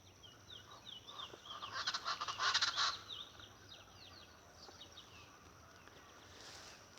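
Speckled chachalacas calling: a burst of rapid, chattering calls from about one and a half to three seconds in, over a thin, high, repeated down-slurred song from smaller birds.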